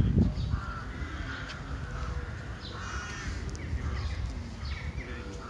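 Crows cawing: several separate harsh calls over a steady low rumble.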